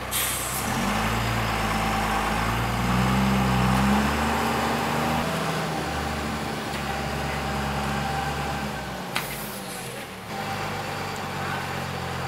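Eicher Pro 5025 T tipper truck's diesel engine revving and pulling away, with a sharp hiss of its air brakes releasing at the start. A second brief air hiss comes about nine seconds in, then the engine dips and picks up again.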